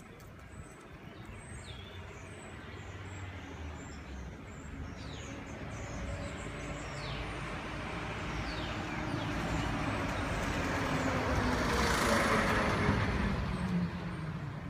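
Street traffic noise from a passing motor vehicle, building slowly and loudest about twelve seconds in.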